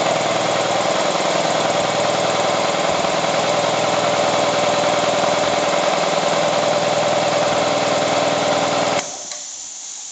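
Sears Craftsman 12-gallon air compressor running steadily, its electric motor driving the finned piston pump, then stopping abruptly about nine seconds in.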